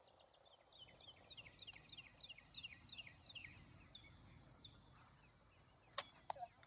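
Faint outdoor background with a bird singing a quick series of short whistled notes, each sliding downward, about three a second, fading out around halfway through. A single sharp click comes near the end.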